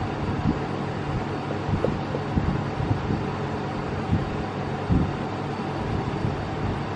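Thin clear plastic bath bomb mould crackling and clicking in short bursts as it is flexed and peeled off a freshly pressed bath bomb, the loudest crack about 5 s in. A steady air-conditioner hum runs underneath.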